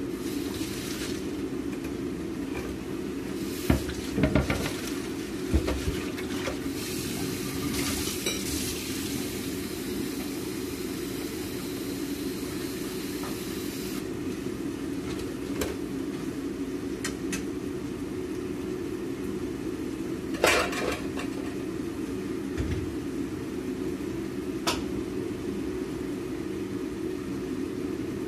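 Kitchen clatter: pots, utensils and a knife on a wooden cutting board knocking now and then, the loudest about two-thirds of the way through, over a steady fan hum from the range hood. Tap water runs into a pot for the first half and stops sharply about halfway.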